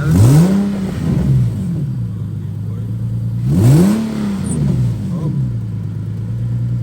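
Infiniti G37's 3.7-litre V6 idling through newly fitted aftermarket cold air intakes, blipped twice. Each rev rises quickly and falls back to idle within about a second and a half.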